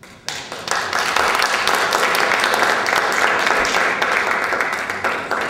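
An audience applauding: many hands clapping together, building quickly after a sharp start and beginning to die away near the end.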